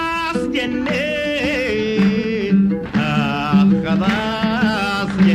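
Old Sudanese song recording, an instrumental passage between sung verses: a melody in long held and sliding notes over a steady, repeating low beat.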